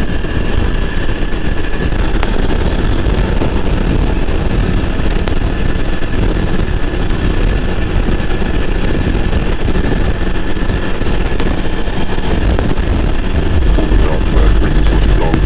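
Yezdi Adventure's single-cylinder engine running steadily at highway cruise around 90 km/h, mixed with wind rushing over the microphone and tyre noise. The low rumble grows a little louder near the end.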